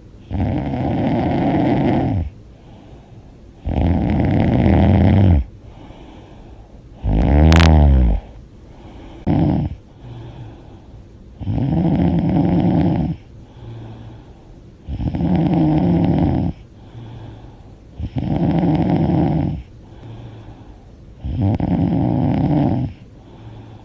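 A woman snoring loudly with her mouth open: a long rasping snore roughly every three and a half seconds, each lasting about a second and a half. About seven seconds in, one snore is shorter and sharper, with a wavering pitch.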